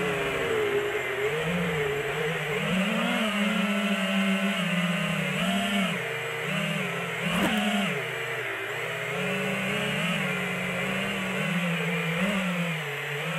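FPV quadcopter's brushless motors and propellers buzzing, heard through the quad's own onboard camera, the pitch rising and falling over and over as the throttle changes.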